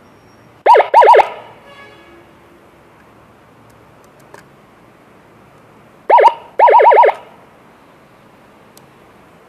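Electronic siren module sounding through a horn speaker in short bursts of rapid, pitch-sweeping chirps: a cluster of about four quick chirps about a second in, and another cluster of about seven around six to seven seconds in.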